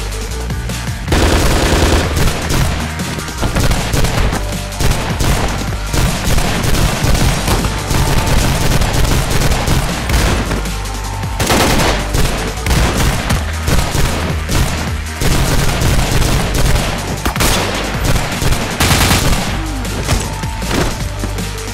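Rapid gunfire sound effects, bursts of automatic fire and single shots, over loud background music.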